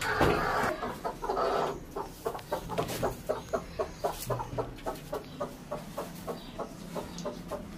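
Broody hen clucking in a steady rhythm, about three clucks a second. A louder, rough burst of noise fills the first two seconds.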